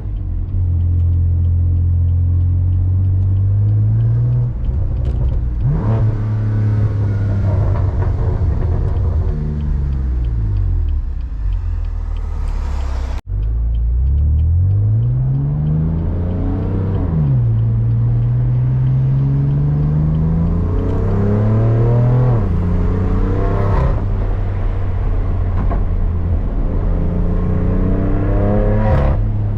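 BMW M3 CS's twin-turbo inline-six, breathing through an AWE SwitchPath exhaust, accelerating hard through the gears. The revs climb and drop back at each shift several times, with a few sharp cracks, then settle to a steadier run near the end.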